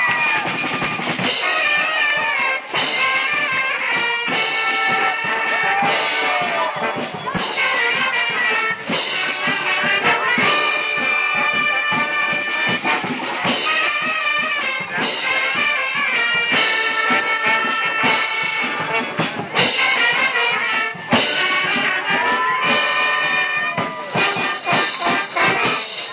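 Brass-and-drum marching band playing a tune live: trumpets, trombones, saxophone and sousaphone over drums.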